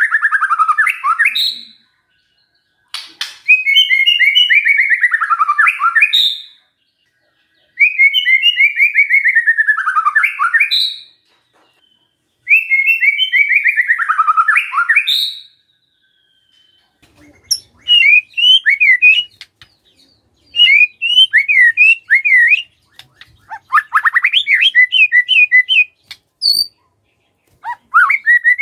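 White-rumped shama (murai batu) singing loud song phrases of about three seconds each, with short pauses between. Each phrase is a fast trill sliding down in pitch. In the second half the song turns to shorter bursts of quick, chopped high notes.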